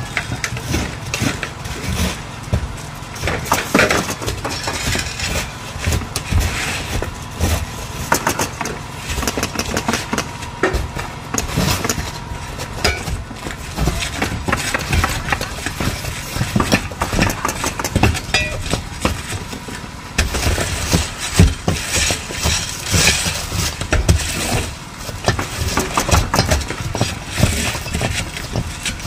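Roofers working on a shingle roof: many irregular sharp knocks and pops from nailing and handling shingles, over a steady engine hum.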